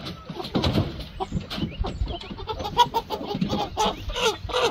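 Rainbow Ranger broiler chickens clucking in a run of short calls that come more often in the second half, as the last birds are caught and lifted by hand into the crate.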